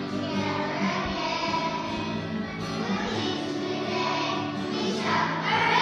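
A class of young children singing a song together in unison.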